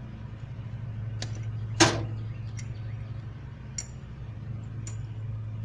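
A few sharp clinks and ticks, like small hard objects knocking together, the loudest about two seconds in, over a steady low hum.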